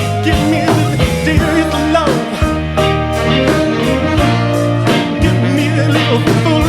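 Music: a song with guitar, steady bass and a drum beat, with some vocal sounds but no sung words.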